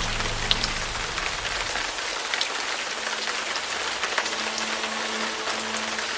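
Steady rain falling, an even hiss with many scattered sharper drop hits.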